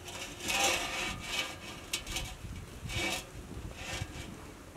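Large black metal kadai scraping against the metal grate of a gas burner as it is shifted into position, in several grating strokes, the longest near the start.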